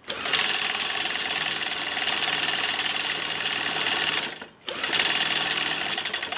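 Sectioned TB43 two-stroke brush-cutter engine being turned over with its piston running up and down in the cut-open cylinder. It makes a fast, rattling mechanical clatter that stops for a moment about four seconds in, then starts again.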